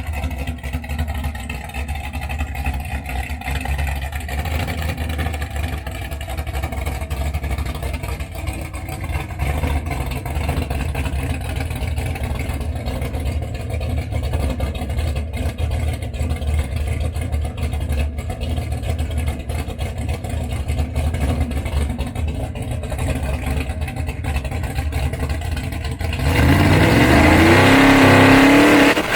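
A modified vehicle engine running steadily at a low, even pitch, then revved hard near the end, much louder, its pitch rising and falling.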